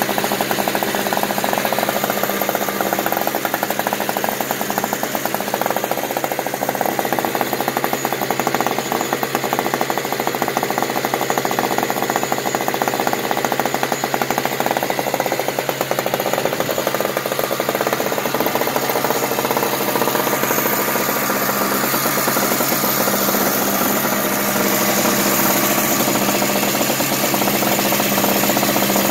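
Craftsman 5 HP two-stroke snow blower engine running steadily just after a cold start, with a fast, even firing rattle. It gets slightly louder near the end.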